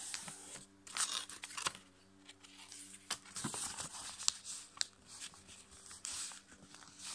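A sheet of copy paper being folded and creased by hand: irregular crisp rustling and crinkling as fingers press the folds flat, with a few sharp crackles, the sharpest a little past four seconds in.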